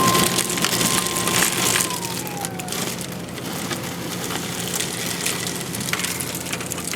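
Automated ice vending machine's motor whining, then winding down in pitch and fading about two seconds in after dispensing a bag of ice, over a steady low machine hum. Crunching and rustling of the bagged ice and its plastic bag being handled.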